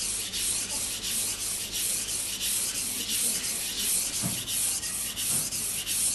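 Kitchen knife blade stroked back and forth on a wet Japanese water stone, a gritty rasping hiss in quick, even strokes through the stone's slurry.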